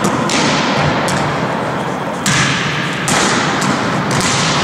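Volleyballs being struck by hand: about four sharp smacks a second or so apart, each ringing on in a long echo of a large sports hall.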